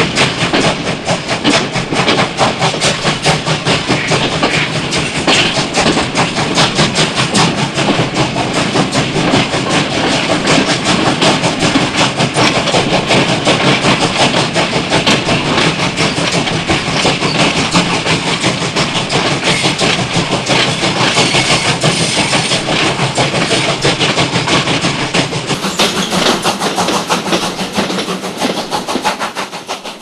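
Steam train chugging along, heard from a carriage doorway: a rapid, even beat with the clatter of the running train. It fades out near the end.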